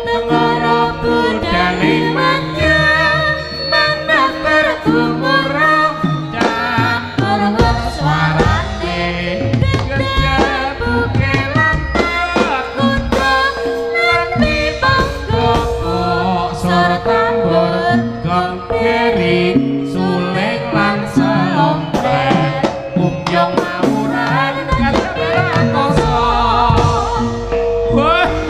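East Javanese jaranan music: a gamelan-style ensemble with drums and a wavering melody line over a held tone, with singing.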